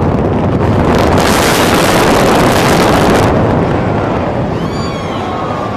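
The concrete arena and garage structure collapsing in a demolition implosion: a loud, continuous rumbling crash of falling debris, heaviest in the first three seconds and then easing. Onlookers' voices and whistles start to come through near the end.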